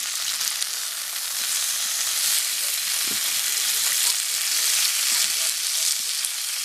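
Bacon sizzling in a frying pan, a steady hissing fry.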